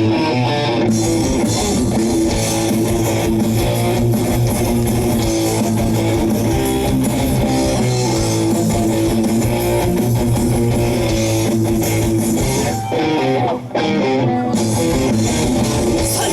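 Rock band playing live, electric guitar to the fore over bass, with a short break in the sound about thirteen seconds in.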